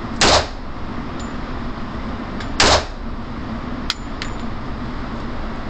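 .44 Magnum revolver fired twice, about two and a half seconds apart, each shot a sharp blast echoing briefly off the walls of an indoor range. A couple of faint clicks follow about four seconds in.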